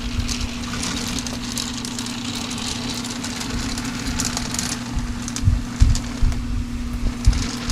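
Steady mechanical hum, with several low thumps and bumps about two-thirds of the way through as a large plastic 3D-printed bear statue is turned and handled.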